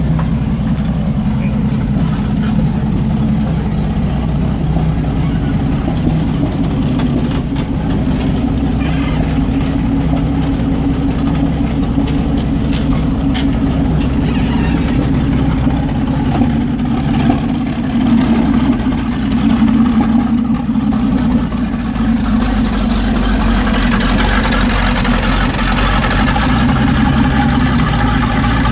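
Jagdpanther tank destroyer's engine running steadily as the tank drives on its steel tracks, with track clatter over the engine note. It grows briefly louder about two-thirds of the way through, and a higher clatter builds near the end as it moves off.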